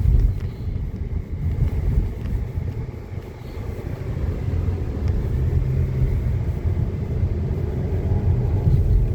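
Strong gusting wind buffeting the microphone: a low rumble that rises and falls, easing briefly about three seconds in before building again.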